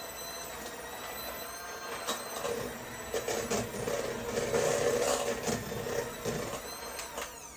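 Electric hand mixer running with a steady motor whine, its beaters creaming butter and cream cheese in a stainless steel bowl. The sound grows louder and more uneven in the middle as the beaters work through the mixture. Near the end the whine drops in pitch as the motor winds down.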